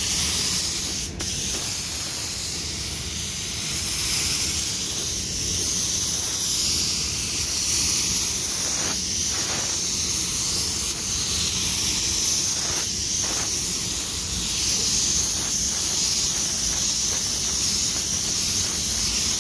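Gravity-feed spray gun spraying clear coat: a steady, continuous hiss of compressed air and atomised lacquer.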